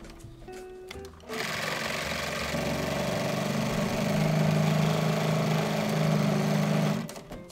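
Electric sewing machine stitching through fabric: the motor starts about a second in, runs steadily with an even hum for about five and a half seconds, and stops just before the end.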